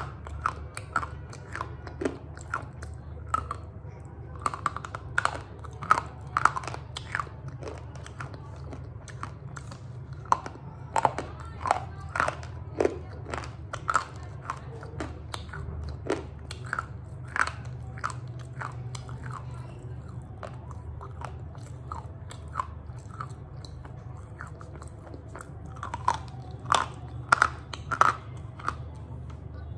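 Jyoti brand slate pencils being bitten and chewed: sharp, brittle crunches in quick runs, sparser for a stretch in the middle, over a steady low hum.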